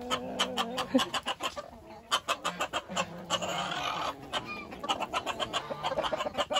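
Chickens clucking, many short sharp calls in quick succession, with a few lower drawn-out calls among them.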